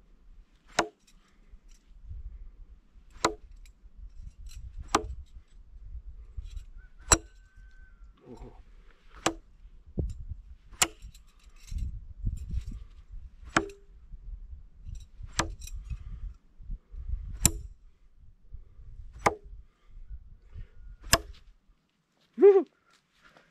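Throwing knives and throwing stars striking a palm-trunk stump: eleven sharp thunks into the wood, about one every two seconds. A short, loud pitched sound comes near the end.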